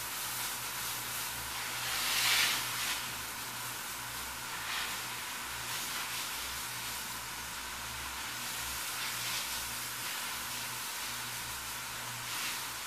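Steady hiss with a low hum underneath, swelling briefly about two seconds in.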